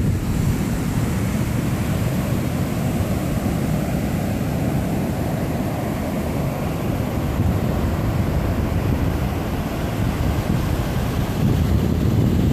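Ocean surf breaking and washing up a sandy beach, heard as a continuous rushing noise, mixed with wind buffeting the microphone that adds a low, fluttering rumble.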